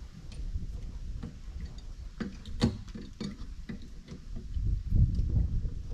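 Light metallic clicks and taps of pliers working a stainless steel wire pin, bending it around the end of a lick roller's axle. One louder click comes a little before halfway, and a low rumble rises near the end.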